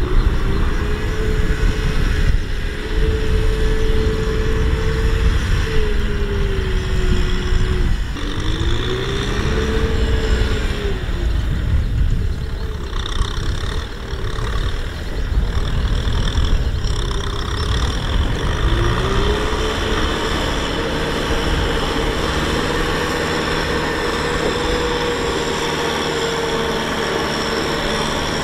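Kubota M6040SU tractor's four-cylinder diesel engine pulling a loaded trailer of rice sacks through a soft field. Its pitch rises and falls several times, then holds steady at a higher pitch for roughly the last third.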